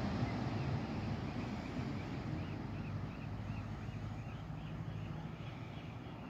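Steady low outdoor rumble of wind and distant surf at the shore. From about two seconds in, a faint high chirp repeats about two to three times a second.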